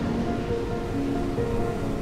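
Background music with long held notes that shift every half second or so, over a steady low noise.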